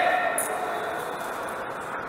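Workshop machinery running with a steady hum and a few faint steady tones.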